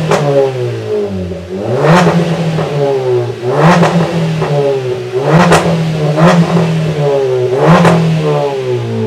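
Hyundai i20's straight-pipe exhaust as the parked car is revved repeatedly. There are about five revs, roughly one every two seconds, each climbing in pitch and dropping back to idle.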